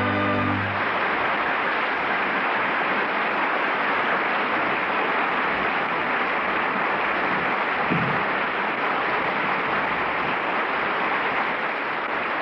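Studio audience applauding steadily, starting as the orchestra's closing chord cuts off in the first second.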